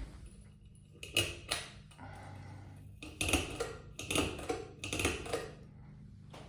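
44-inch Trice ceiling fan running with a steady low motor hum, joined by irregular sharp clicks and rattles, a pair about a second in and a cluster between three and five and a half seconds.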